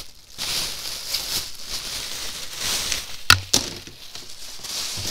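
Rustling of packaging being handled. A little past halfway there is a sharp click and knock, with a second lighter click just after.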